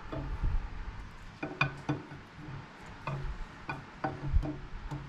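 Camshaft of a Chrysler 318 V8 being slid out of the engine block: irregular light metallic clicks and knocks, about a dozen, as the lobes and journals bump through the cam bearings.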